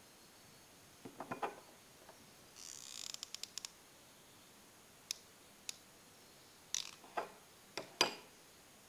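Handling noise as a foam-decorated pencil is picked up and turned in the hands close to the microphone. Scattered taps and clicks are heard, with a brief rustle and a quick run of clicks about three seconds in and the sharpest taps near the end.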